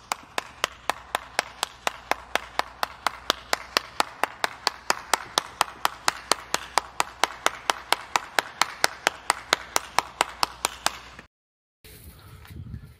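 One person clapping their hands at a steady pace, about four claps a second. The clapping stops abruptly about eleven seconds in, and after a brief silent gap there is faint background noise.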